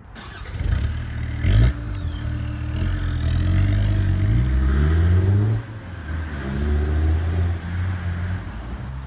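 Car engine sound effect, revving up and easing off in two swells, with a sharp knock about one and a half seconds in.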